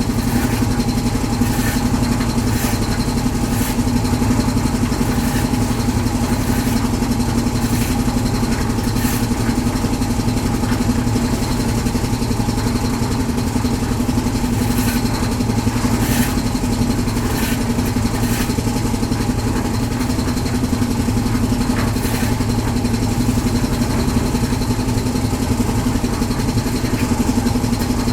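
Engine of a concrete mixer machine running steadily, with irregular clicks and clatters over it.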